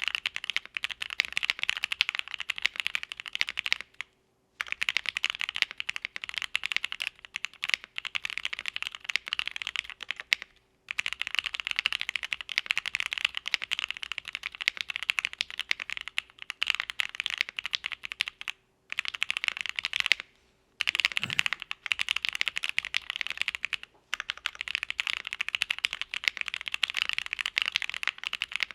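Continuous typing on a mechanical keyboard with Gateron CJ linear switches, a polycarbonate plate and GMK keycaps: a dense clatter of keystrokes broken by a few short pauses.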